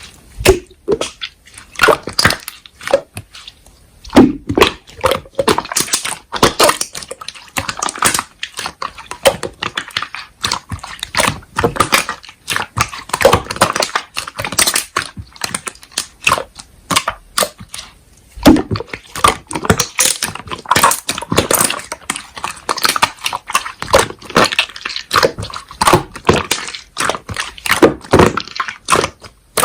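Slime being squeezed, poked and stretched by hand, making a dense run of sticky, irregular clicks and pops.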